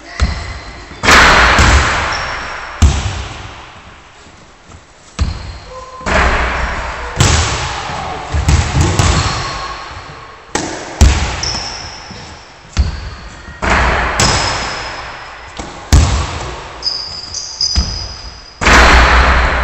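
Basketballs hitting the rim and backboard and bouncing on a wooden gym floor, about fifteen impacts, each ringing on in the hall's echo.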